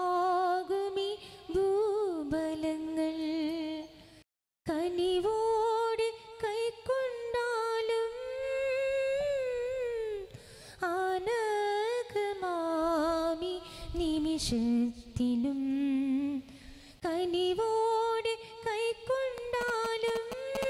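A single female voice singing a slow hymn melody with vibrato and gliding notes, as the offertory hymn at Mass. The sound cuts out completely for a moment about four seconds in.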